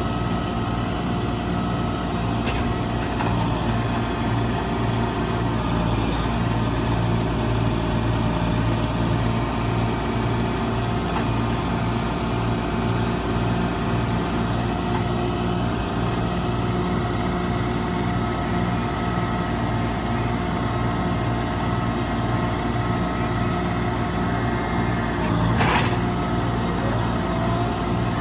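Engine of log-loading machinery running steadily, with one sharp knock near the end.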